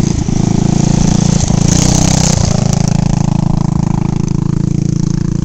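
Go-kart's small engine running steadily, with a brief hiss about two seconds in.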